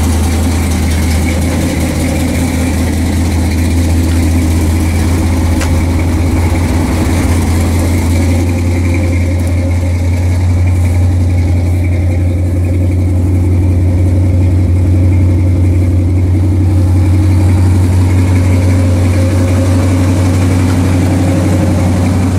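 A car engine idling steadily, loud and close, with an even low throb that holds throughout.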